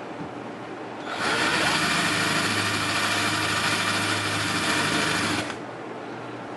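Electric drill running steadily for about four seconds, drilling out the rounded back of a rivet on a starter solenoid. It starts about a second in and stops suddenly near the end.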